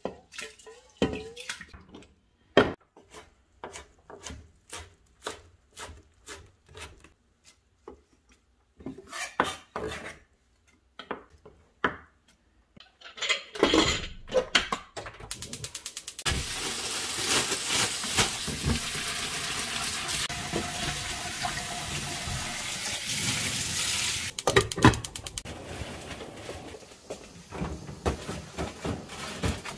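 Rice being washed by hand in a stainless steel bowl: a string of short swishes and light knocks of water and grains against the metal. About halfway through comes a steady rush of running tap water lasting several seconds, then more clatter of kitchen pots and dishes.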